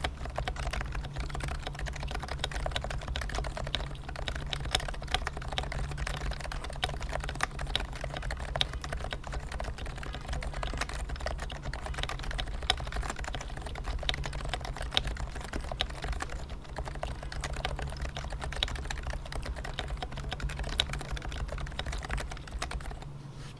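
Leopold FC660C keyboard with stock Topre Silent 45g switches being typed on continuously: a fast, steady run of keystrokes with an occasional louder strike. The typing stops just before the end.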